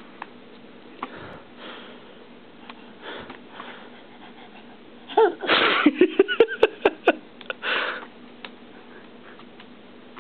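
A toddler's short burst of high-pitched giggling and squeals a little past halfway, with a few sharp clicks over it, then a breathy huff. Before that, only faint room noise with a few soft taps.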